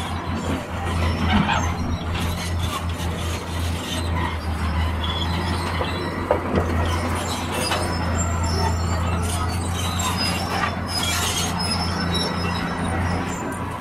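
Sunward crawler excavator's diesel engine running under load with a steady low drone, while its steel bucket scrapes and knocks through broken rock, with a few sharp knocks and some high screeching.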